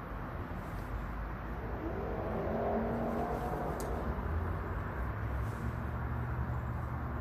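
A motor vehicle's engine, pulling up in a rising drone about two seconds in and then settling into a low rumble, over steady outdoor background noise. A faint tick about four seconds in.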